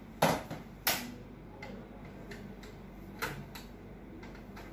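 Sharp clicks and taps of a screwdriver and parts against a stripped-down laser printer's metal frame and plastic parts. There are three louder clicks, about a quarter second, one second and three seconds in, with fainter ticks between them.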